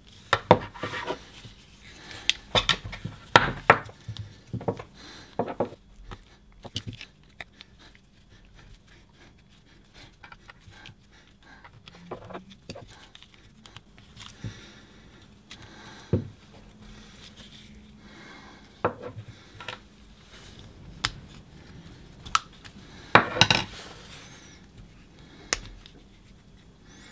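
Irregular plastic clicks, knocks and rattles as a Briggs & Stratton push-to-prime carburetor is handled and taken apart by hand, its red rubber primer bulb being worked out of the plastic carb body. The clatter comes in bunches, with the loudest knocks near the start and a burst near the end.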